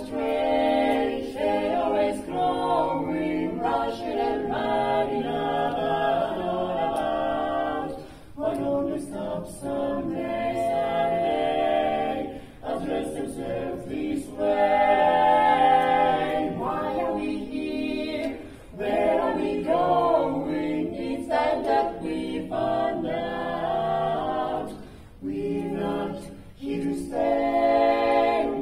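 Mixed barbershop quartet, two men's and two women's voices, singing a cappella in close four-part harmony. The song goes in sung phrases with brief breaks between them.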